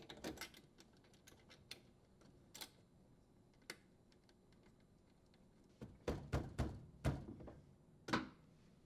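Faint, scattered light clicks and taps from handling small parts at a dishwasher's electrical terminal box, with a cluster of louder clicks and knocks from about six seconds in, as the strain relief nut is threaded on and tightened.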